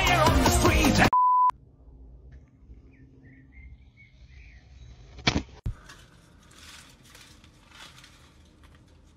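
Loud music cuts off about a second in and is followed by a short, steady beep tone. After the beep there is only faint crackling and hissing, with a sharp click about five seconds in.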